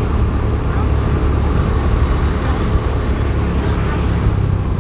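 Steady low rumbling road noise of a motorcycle ride in traffic: engine and road sound, with no horn or sudden event.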